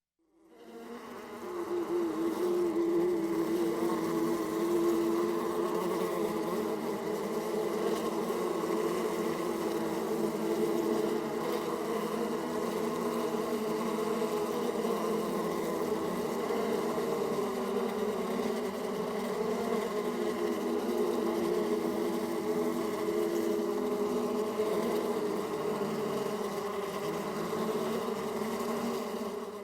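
A swarm of bees buzzing: many overlapping wingbeat drones, dense and steady, fading in over the first two seconds and dropping away at the end.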